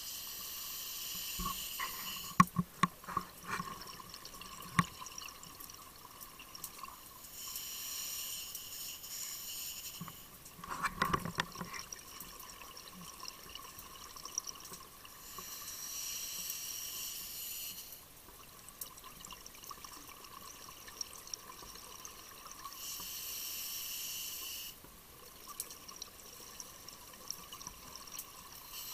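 Scuba diver breathing underwater through a regulator: a steady hiss of about two seconds on each inhalation, repeating roughly every seven seconds, with bursts of bubbling and clicking from the exhaled bubbles in between. A faint steady tone runs underneath.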